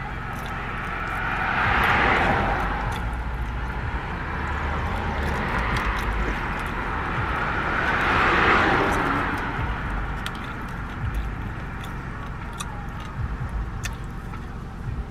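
Traffic passing, heard from inside a car: two vehicles swell up and fade away, one about two seconds in and another about eight seconds in, over a steady low rumble.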